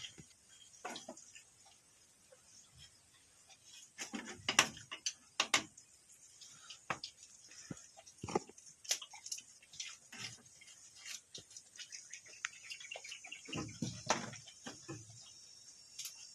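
Goats moving and feeding: scattered rustling, snapping and knocking sounds, busiest about four to six seconds in and again near fourteen seconds.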